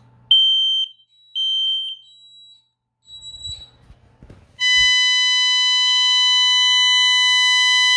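Smoke detector on a Honeywell ProA7 alarm system being tested: two short high beeps about a second apart as its test button is pressed, then about four and a half seconds in the fire alarm starts, a loud, steady, shrill tone.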